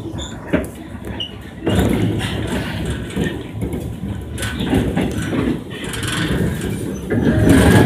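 Running noise of a Korail Line 1 resistor-controlled electric train, a deep rumble of wheels on rail and traction gear heard from inside the car. It gets suddenly louder about two seconds in and swells again near the end.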